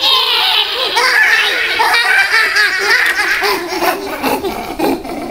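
A cartoon character's voice put through a high-pitched, warbling comic voice-changer effect, sounding like laughter.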